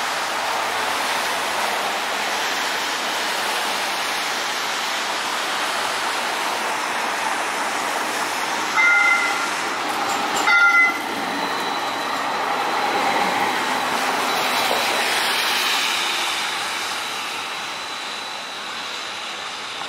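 A battery-electric QLine streetcar passing on wet pavement, over a steady hiss of traffic tyres on the wet road. Near the middle the streetcar's horn gives two short toots about a second and a half apart, and a faint steady high whine carries on through the second half.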